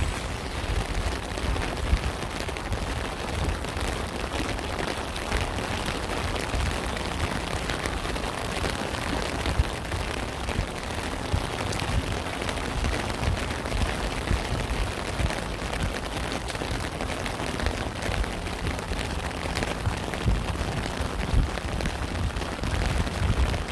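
Steady heavy rain falling and pattering on surfaces, with dense drop impacts and a low rumble underneath.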